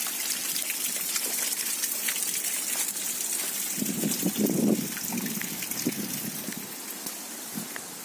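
A steady hiss of water with many small drip-like ticks. From about four seconds in, lower, patchy scuffing sounds join it.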